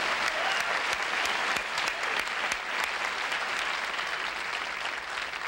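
Studio audience applauding, the clapping slowly dying down toward the end.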